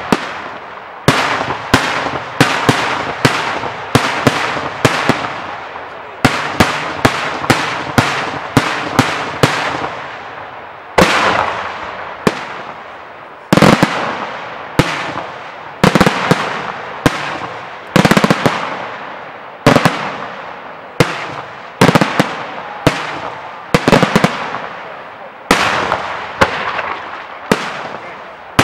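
Daytime aerial firework shells bursting overhead in steady succession: loud sharp bangs, about one to two a second, each trailing off in an echo, with a few quick clusters of reports.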